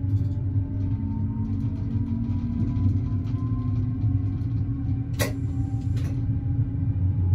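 Diesel railcar (AKN VTA) running, heard inside: a steady low engine rumble with a faint whine slowly rising in pitch as it gathers speed. A pair of sharp clicks from the running gear comes about five seconds in, a little under a second apart.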